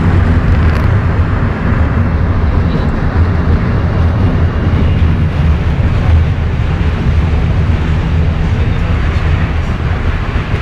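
Vintage Budapest UV tram running along the line, heard from inside the passenger car: a loud, steady rumble of the car riding over poorly kept track.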